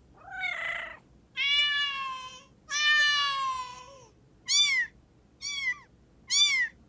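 People imitating a cat, meowing over a video call. A short rough meow comes first, then two long drawn-out meows, then three short meows about a second apart.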